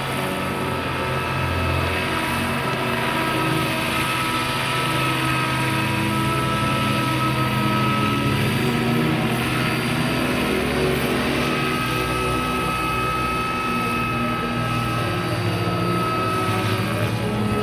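Electric-powered 1/8-scale Vario Westland Lynx Mk 8 model helicopter in flight: rotor and electric motor running steadily, with a thin high whine over a low drone.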